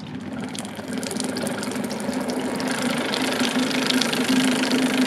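Water-methanol injection pump running on its test function, pumping distilled water through the system: a steady hum with a hiss of water that grows louder over the first three seconds as the pump ramps up, then holds at full speed.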